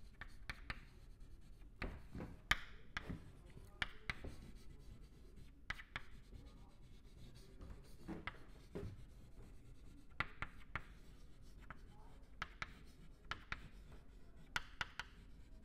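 Chalk writing on a chalkboard: faint, irregular taps and scratches as the chalk forms letters.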